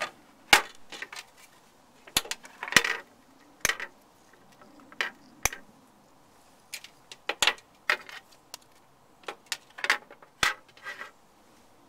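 Rigid plastic alarm box housing parts being handled and set down on a table: about a dozen irregular sharp clicks and knocks.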